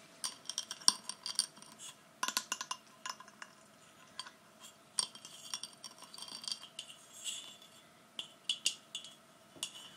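Long fingernails tapping and scratching on a beaded ball ornament: irregular runs of light clicks and clinks, some ringing briefly.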